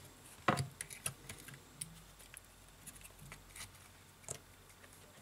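Small scattered clicks and taps of a smartphone's internal parts and frame being handled and pressed together during reassembly, the sharpest tap about half a second in.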